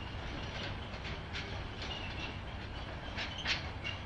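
Freight train wagons rolling over the rails: a low steady rumble with irregular clicks of wheels over rail joints and a few short, high squeaks.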